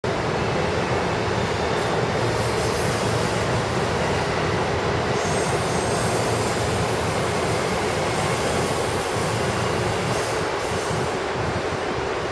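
Electric train running past on the rails: a steady, loud rumble of wheels and track, with a faint, high wheel squeal now and then.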